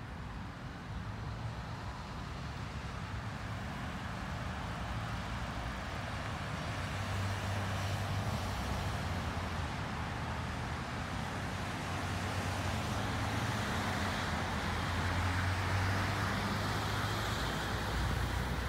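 Road traffic on a wide multi-lane road: a steady rush of tyres and engines with a low engine hum. It builds gradually as vehicles come through, loudest about three quarters of the way in, then eases slightly near the end.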